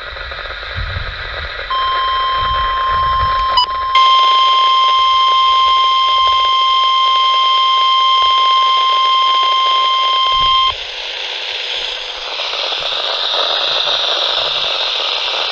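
Weather radio receivers sounding the NOAA Weather Radio warning alarm, one steady high tone. It starts about two seconds in, breaks off for a moment, then comes back louder for about seven seconds and cuts off sharply. Radio static hiss is left after it.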